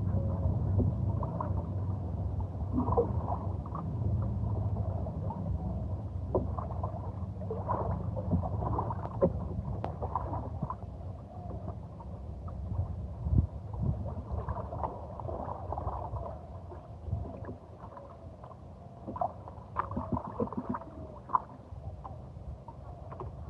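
Kayak paddling on a river: water gurgling and splashing around the paddle and hull, with scattered sharp knocks over a steady low rumble. It gets somewhat quieter about halfway through.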